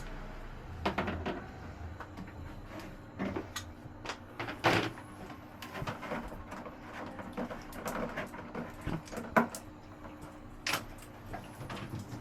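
Irregular clicks, knocks and clatter of hand tools and fittings being handled while an instant shower water heater is disconnected, with a few louder knocks about halfway through and near the end.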